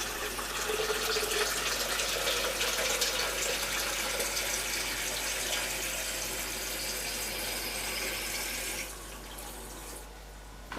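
Water running steadily from a tap into a jug, stopping about nine seconds in.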